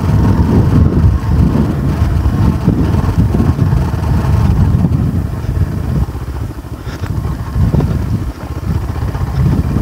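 A motor vehicle's engine running with a low, uneven rumble that dips briefly about six and eight seconds in.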